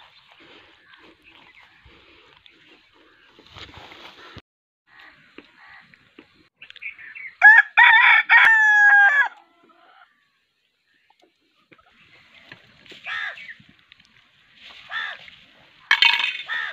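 A rooster crowing once, a loud call of several notes ending in a long held note that falls slightly, lasting nearly two seconds. A few shorter, fainter chicken calls follow near the end.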